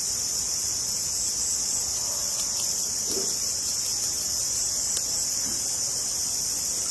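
Steady, high-pitched chorus of insects chirring without a break.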